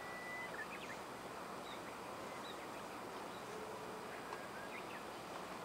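Quiet outdoor ambience: a steady soft hiss with faint, short high chirps scattered through it.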